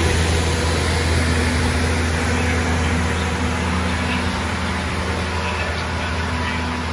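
Engine of a road-rail maintenance vehicle running steadily with a low hum as it travels away along the track, slowly growing quieter.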